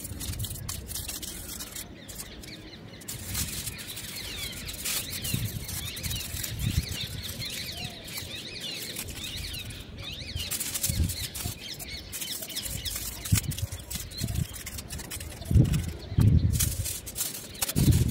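Aluminium foil crinkling as it is pressed over small glasses, with birds chirping in the background and a few dull knocks near the end.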